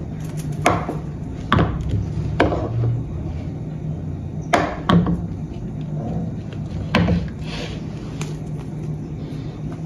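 A series of about seven sharp knocks and taps at uneven intervals, from kitchen utensils and the pan being handled on a work surface, over a low steady hum.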